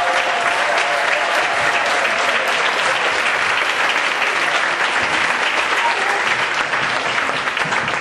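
A large audience applauding, many hands clapping together at a steady level.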